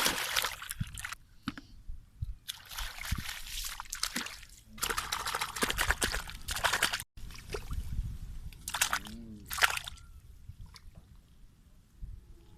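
Water pouring and sloshing in several bursts of a second or two, with a sudden break about seven seconds in and two shorter splashes near nine seconds.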